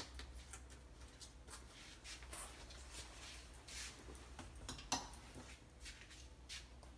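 Leather jackets rustling and hangers clicking on a wire closet rack as the jackets are hung up and pushed along, with scattered light clicks and a sharper click about five seconds in.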